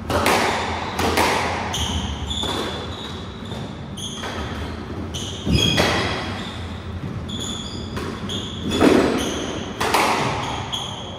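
Squash rally: a string of sharp hits as rackets strike the ball and it smacks off the walls, each ringing briefly in the enclosed court. Short high-pitched squeaks of shoes on the wooden floor come between the hits.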